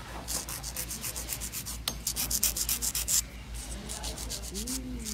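Hand nail file rasping back and forth across a long acrylic nail in quick strokes, several a second, shaping it; the strokes are strongest in the first three seconds, then pause briefly and go on more lightly.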